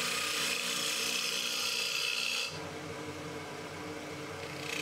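Wood lathe spinning with a gouge cutting into the turning wood: a hissing scrape of shavings peeling off over the steady hum of the lathe. The cut eases about two and a half seconds in and bites harder again near the end.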